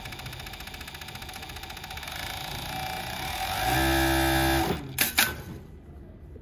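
JUKI MF-7923 cylinder-bed coverstitch industrial sewing machine running with a fast, even chatter, then a louder steady hum for about a second, followed by two sharp clicks.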